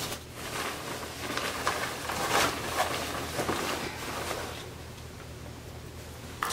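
Fabric rustling and swishing as a duvet cover is pulled and shifted over a down comforter, in several bursts that die down about two-thirds of the way through.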